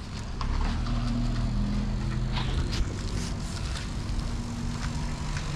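A steady low motor hum, like an engine running nearby, with a few light clicks and rustles over it.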